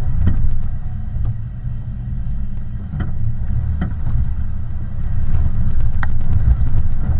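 Off-road vehicle driving over a rough trail: a steady low rumble, with scattered knocks and rattles from the bumps.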